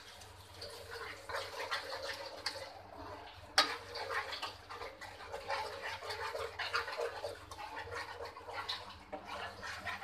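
Tempering water with mustard seeds, curry leaves and green chillies heating in a nonstick frying pan, coming up to the boil with an irregular bubbling crackle while a spoon stirs the sugar in to dissolve. The spoon clinks sharply against the pan once, about three and a half seconds in.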